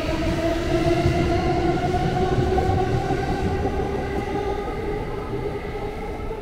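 JR Yamanote Line E235-series electric train accelerating away from the platform: its traction motors whine, rising steadily in pitch over the rumble of wheels on rail. The sound fades over the last couple of seconds as the train pulls away.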